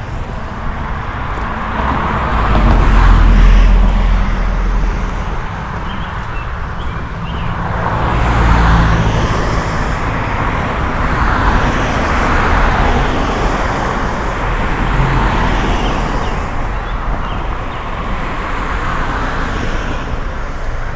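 Cars passing one after another on a wet road, tyres hissing over a steady traffic background; the two loudest go by about three and nine seconds in.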